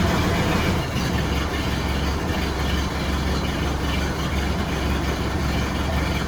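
1931 Ford Model A four-cylinder flathead engine running after a fresh set of spark plugs, with a steady low rumble. About a second in it settles to a slower, lower idle.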